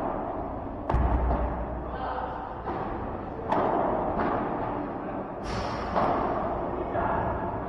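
Padel rally: the ball is struck by rackets and hits the court walls, a sharp hit roughly every second, with a heavier thud about a second in.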